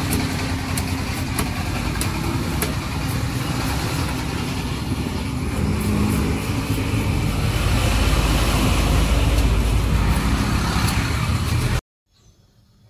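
Road traffic noise with a vehicle engine rumbling, swelling louder in the second half, while a knife chops eel on a wooden stump block in several sharp knocks. The sound cuts off abruptly near the end to a faint hush.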